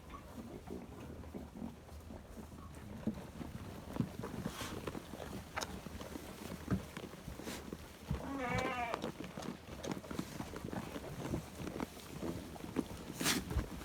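A sheep bleats once about eight seconds in, a single wavering call lasting about a second. Scattered short clicks and knocks sound around it.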